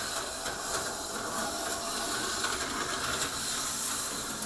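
HO-scale slot car running laps on plastic track: a steady hissing whir from its small motor and pickups on the rails, with a few light clicks.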